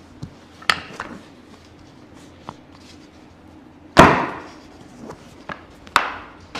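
A chiropractic adjustment on a treatment table: a few sharp clicks and pops, then one loud knock about four seconds in that dies away briefly, and another sharp click near the end.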